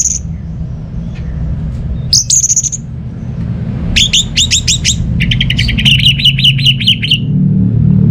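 Orange-headed thrush singing: a short high phrase about two seconds in, then from about four seconds a fast run of repeated sharp notes lasting about three seconds, over a steady low hum.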